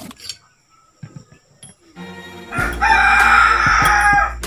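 A rooster crows once, loud, lasting about a second and a half in the second half. Before it come a few light clicks of metal pistol parts being handled.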